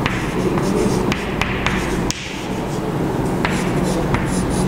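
Chalk tapping and scratching on a blackboard while words are written, with a few sharp taps spread through, over a steady background hiss and hum.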